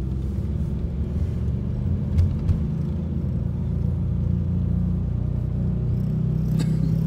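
Toyota car heard from inside the cabin while driving, its engine and tyres making a steady low rumble, with two brief thumps a little over two seconds in.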